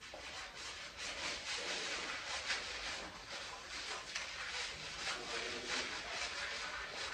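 Fingertips scrubbing shampoo lather through short, tightly coiled hair: a rhythmic wet scratching and rubbing on the scalp.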